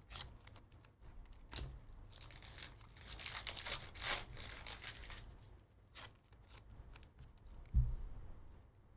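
A trading-card pack wrapper being torn open and crinkled, with a few light clicks of cards being handled and a dull thump near the end.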